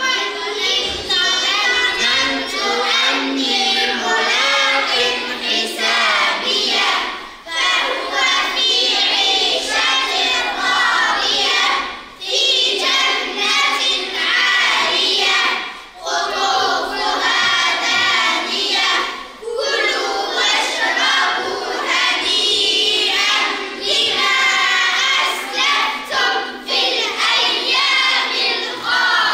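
A group of children reciting the Quran aloud in unison, chanted in long phrases with short breaths between them.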